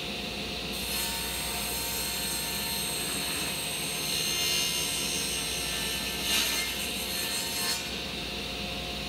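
Table saw running with its blade raised high, cutting through a thin wooden panel from about a second in until near the end, when the cutting noise stops and the motor runs on alone.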